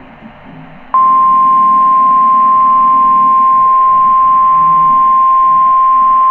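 NOAA Weather Radio 1050 Hz warning alarm tone: one loud, steady, unbroken beep that starts abruptly about a second in, after a moment of faint hiss. It is the alert signal that a weather warning is about to be read.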